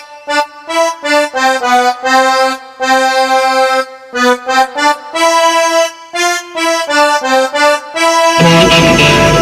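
Instrumental music: an accordion plays a solo melody in separate notes and short phrases. Near the end a full band with bass and drums comes in.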